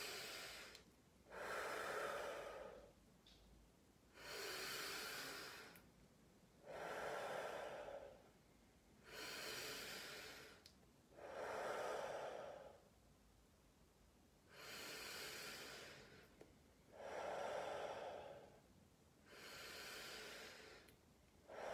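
A man breathing slowly and deeply, long breaths in and out in turn, each about a second and a half with short quiet gaps between, some ten breaths in all: a paced deep-breathing exercise of five breaths in and five out.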